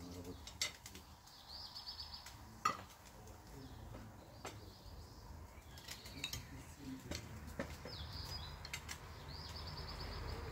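Cutlery clinking and scraping on plates during a meal, in scattered sharp clicks, one louder clink a little under three seconds in. A small bird's trill sounds a couple of times in the background.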